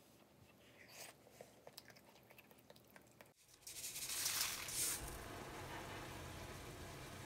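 Coarse sea salt sprinkled over spring cabbage leaves in a stainless steel colander: a hissing patter of falling grains for about a second and a half, then a steady low background hum. Before that, a few faint clicks of chopsticks.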